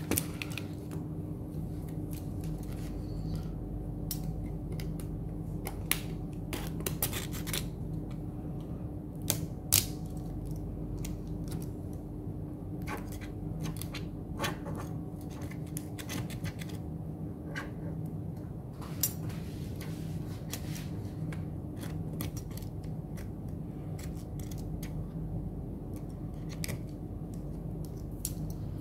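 A small tool scraping and clicking against a phone's frame as old screen adhesive is cleaned off, in short, irregular strokes. A steady low hum runs underneath.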